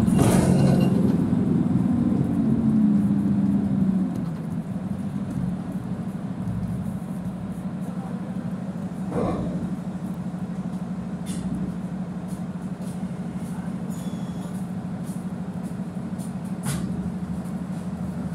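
Mercedes-Benz Citaro C2 city bus's engine and drivetrain heard from inside the cabin: a loud low hum for about the first four seconds, then a quieter, steady hum as the bus rolls on. Short knocks or rattles from the bus body come at the start, about nine seconds in, and near the end.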